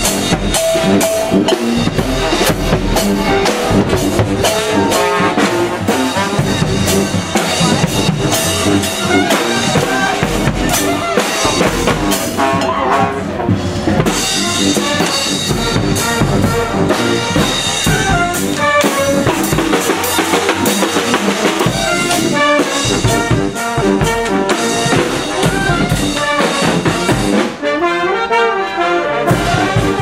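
Marching brass band playing: trumpets and trombones over a driving beat of bass drum and snare drums, with a horn glide near the end.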